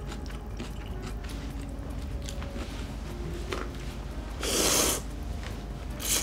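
Instant ramyeon noodles slurped from chopsticks: a long loud slurp about four and a half seconds in and a short one at the very end, with soft chewing and small clicks before.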